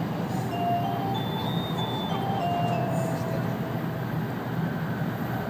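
Steady running noise inside an N700 series Shinkansen car, with a short electronic chime melody of stepping notes in the first three seconds: the onboard chime that comes before a next-station announcement.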